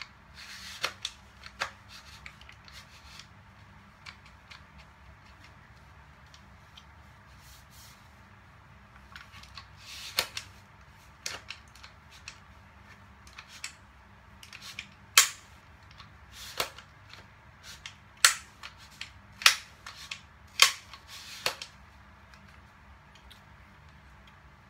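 Sharp plastic-and-metal clicks from an E&C EC832S MK18 BB gun as it is handled and its stock is worked. A few scattered clicks come early and again around the middle, then a run of louder snaps about once a second near the end.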